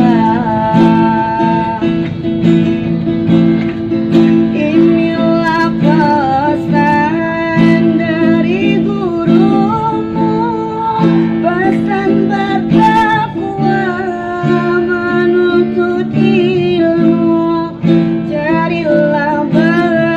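Acoustic guitar strummed in a steady rhythm, with a voice drawing out a wavering, ornamented sholawat melody over it.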